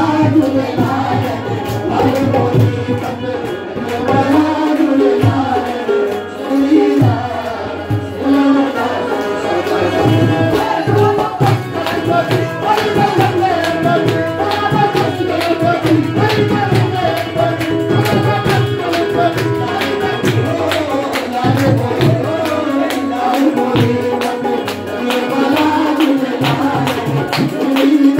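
Live devotional song: men singing into microphones over a harmonium, with a dholak and tabla playing a steady beat.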